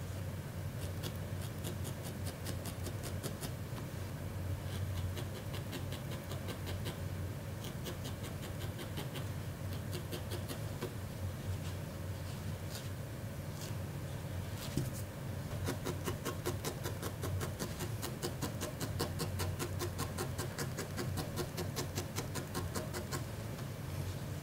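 Barbed felting needle stabbing repeatedly into wool, a steady run of short soft pokes at several a second, tacking a wool ear down onto a needle-felted figure.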